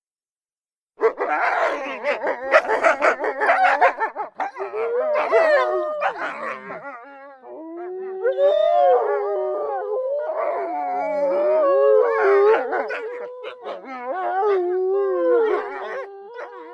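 Wolves yipping and barking in a dense, overlapping burst about a second in, then howling together, several rising and falling howls overlapping.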